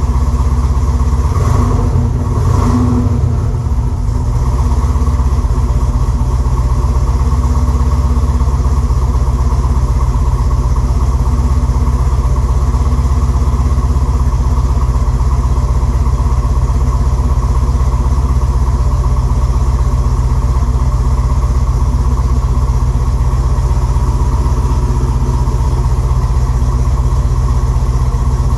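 A GM 6.2-litre LS crate V8 with an Elgin stage 3 cam, running steadily at idle, loud, with a brief unsettled patch about two seconds in. It is the uneven idle of a big cam that still needs tuning to smooth it out.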